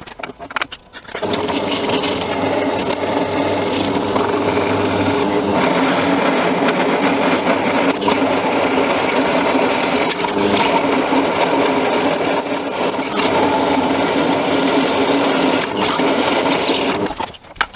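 Pillar drill press drilling a large hole in a steel block, its motor and spindle running steadily as the bit cuts. It starts about a second in and stops shortly before the end.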